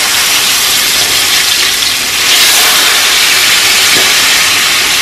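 Chicken thighs sizzling in hot cooking oil in a skillet as they start to brown, a steady hiss that grows louder about two seconds in.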